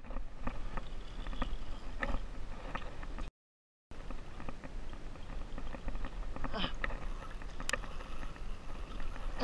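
Water lapping and sloshing against a plastic fishing kayak's hull, with scattered small knocks and clicks of gear on the boat. The sound cuts out completely for about half a second a third of the way in.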